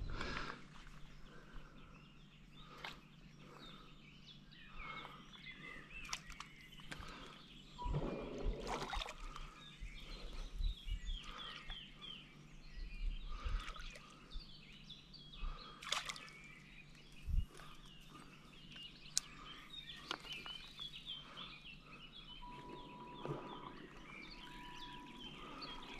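Outdoor ambience with birds chirping and singing throughout, and a few sharp knocks close by. A steady high tone sounds for a couple of seconds near the end.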